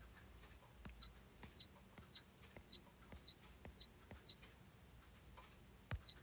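Digital watch key tone: seven short, high-pitched button beeps at about two a second, each just after a faint click of the button. After a pause, one more beep follows a soft thud near the end.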